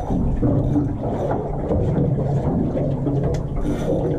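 Boat engine running steadily at idle with wind on the microphone, a low steady rumble, with a few faint clicks.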